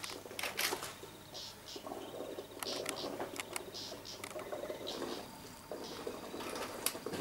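African elephants drinking at a waterhole: irregular splashing and trickling water as trunks dip and draw, with many scattered sharp clicks and short hissy sounds.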